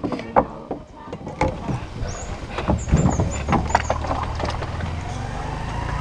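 Longtail boat's engine starting about a second and a half in and then running steadily, with scattered knocks and a few short high squeaks around the middle.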